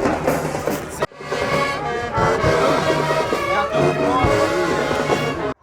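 A brass band playing, trumpets and trombones prominent. The music dips out briefly about a second in, then cuts off abruptly at the end.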